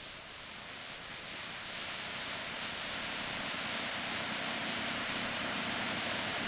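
A steady, even hiss, strongest in the high range, swelling over the first couple of seconds and then holding steady.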